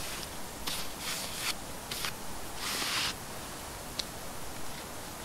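Hands working with a knife over foil-wrapped camp food: several short, scratchy rustles and scrapes, with one sharp click about four seconds in.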